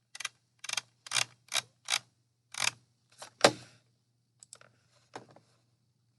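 Computer clicks while paging through photos: about eight sharp clicks in the first four seconds, then two fainter ones near the end, over a faint steady low hum.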